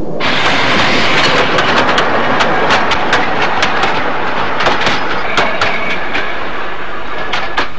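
Passenger train running close by: a loud, steady rush of wheels on rails with sharp, irregular clacks as the wheels cross the rail joints. It starts suddenly just after the opening.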